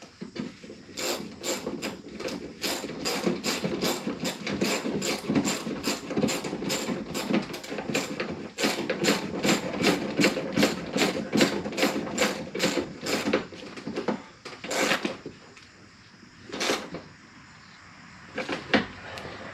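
Hand ratchet clicking steadily, about three to four clicks a second, as a fastener is turned home. It stops after about thirteen seconds and is followed by a few single clicks.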